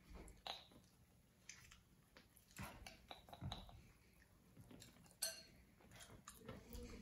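Faint sounds of a child eating noodles with chopsticks: quiet chewing and a few scattered clicks of wooden chopsticks against a glass bowl.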